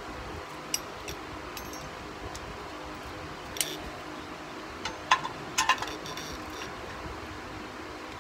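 Scattered metallic clicks and clinks of a wrench working on an exhaust oxygen sensor to unscrew it, with a cluster of sharper clinks about five to six seconds in, over a steady background hum.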